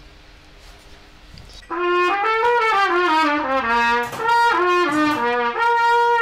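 Besson trumpet, its bell just repaired, being play-tested: after a short quiet start it plays a run of notes that rises, falls, climbs again and ends on a held note.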